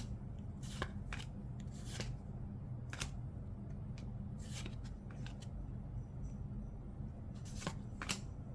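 Trading cards being flipped and slid over one another by hand: a string of short swishes and flicks at irregular intervals over a low steady hum.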